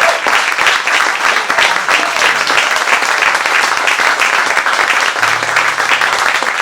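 An audience applauding steadily at the end of a song, a dense patter of many hands clapping.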